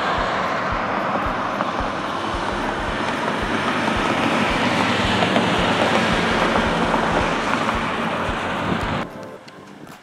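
Steady rumbling vehicle noise that cuts off abruptly about nine seconds in.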